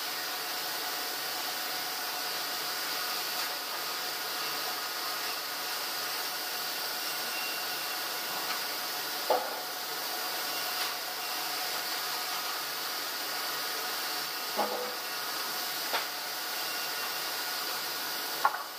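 Large log bandsaw running steadily with a continuous hiss and hum, as timber is worked through it. A few sharp wooden knocks come in the second half as the wood is moved on the saw table.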